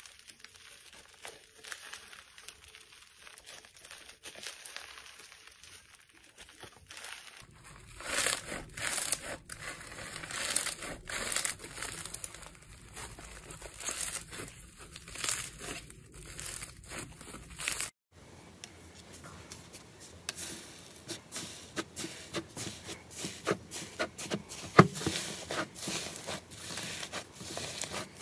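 Hands squeezing and stretching slime, a dense crackling and popping full of small clicks, in three short stretches. The middle stretch, pink slime packed with foam beads, is the loudest; the last, a soft blue slime being kneaded, has one sharp pop a few seconds before the end.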